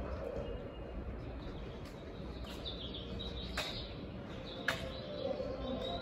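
Station platform ambience: a steady low rumble from yellow Seibu electric trains standing at the platform, with a few short bird chirps and two sharp clicks.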